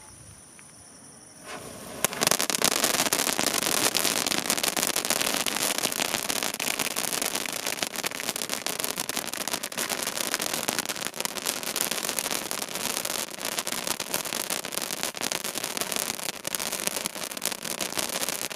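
Waterfall pencil fireworks burning: a dense, continuous crackling hiss of sparks that starts suddenly about two seconds in and keeps going.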